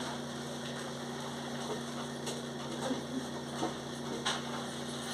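A steady low hum with a few faint, short clicks, about two to four seconds in.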